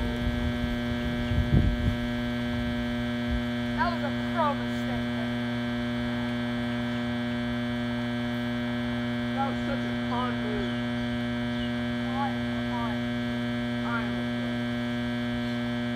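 A steady electrical hum with many evenly spaced overtones, which the uploader puts down to a broken generator. Short bird chirps come through it about four seconds in and several times later, and a couple of low rumbles sound in the first two seconds.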